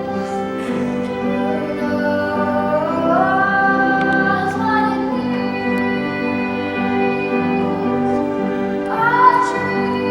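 Children's choir singing a song with instrumental accompaniment; the voices glide up to higher notes twice.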